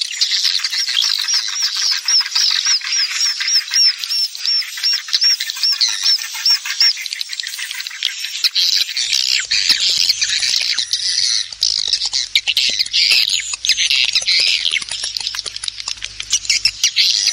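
Swiftlet lure recording: a crowd of swiftlets twittering in dense high chirps, mixed from their roosting calls with the flutter of wings. In the first five seconds a run of about three identical rising-and-falling chirps a second repeats, over a fast crackle of clicks.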